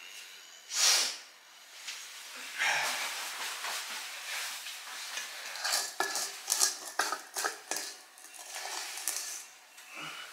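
Metal spoon scraping and clinking against a stainless steel mixing bowl, a run of quick scrapes and taps in the second half. A short, loud rush of noise comes about a second in.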